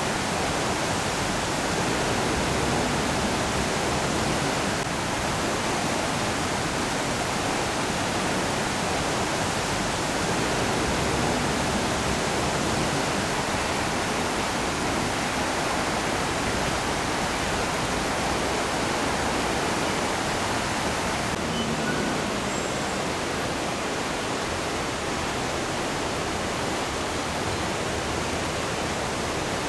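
Floodwater of an overflowing creek rushing and churning over its banks, a steady loud rush.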